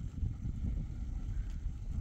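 Wind buffeting the microphone: an uneven low rumble.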